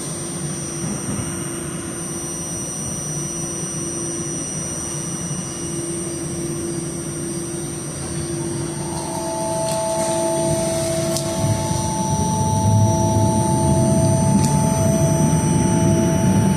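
Buffalo Metro Rail light-rail car running, heard from inside: a steady rumble with a constant whine. About nine seconds in, two steady higher tones join, and the rumble grows louder.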